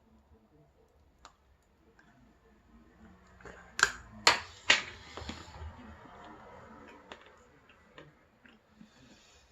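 Biting into a chocolate bar close to the microphone: three sharp, loud crunches in quick succession about four seconds in, followed by softer chewing.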